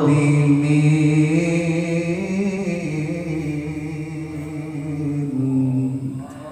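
Man reciting the Quran in the melodic tilawah style into a handheld microphone, holding one long, gently wavering note that fades out near the end.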